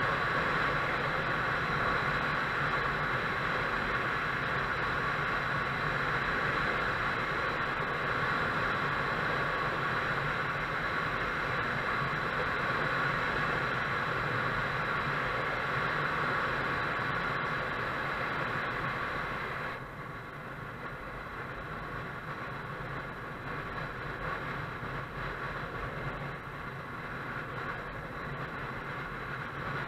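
Motorcycle on the move: steady wind rush mixed with engine noise. The noise drops suddenly and stays lower about twenty seconds in.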